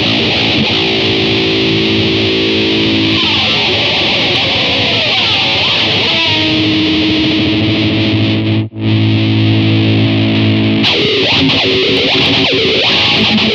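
Distorted electric guitar recorded direct through an effects unit into an audio interface, with no amp or microphone. It plays riffs and long held chords, cutting out for an instant about two-thirds of the way through, then goes into busier picking.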